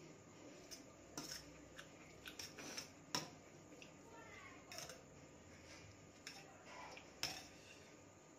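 Metal fork clinking and scraping against a steel plate while forking up instant noodles: a handful of sharp clicks, the loudest about three seconds in and again near the end.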